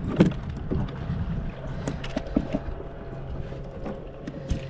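Scattered knocks and taps in a kayak, a few in quick succession near the start and more around the middle, over a steady low rumble of wind on the microphone.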